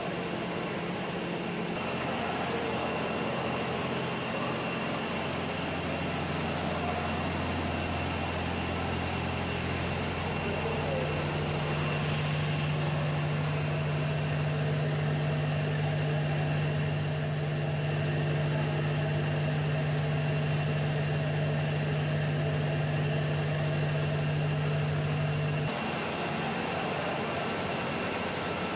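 Olive oil mill machinery running: the malaxer, the Amenduni decanter centrifuge and the separator. It makes a steady drone with a constant whine. The mix of hum and whine changes abruptly about two, ten and twenty-six seconds in.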